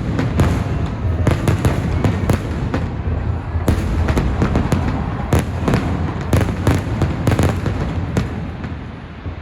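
Aerial fireworks display: a rapid barrage of bursts and crackling over a steady low rumble, thinning out and fading about eight seconds in.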